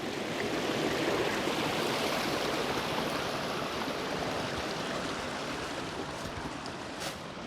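Creek water rushing steadily over rocks and small falls.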